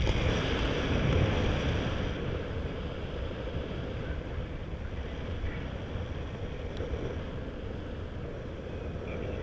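Rushing airflow buffeting the microphone of a paraglider pilot's camera in flight, louder for the first two seconds while the wing is banked, then settling to a steady rush.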